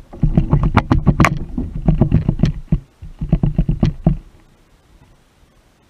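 Rapid, irregular knocking and rattling on a kayak, in two bursts: one of almost three seconds, then a shorter one of about a second.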